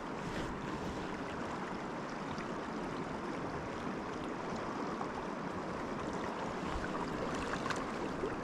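River water rushing steadily, with a few faint ticks near the end.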